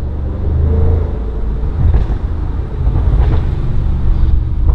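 Tuned 730 hp Audi RS6 Avant (C7) with its twin-turbo V8 and Milltek exhaust running, a low, fairly steady exhaust note heard from inside the cabin.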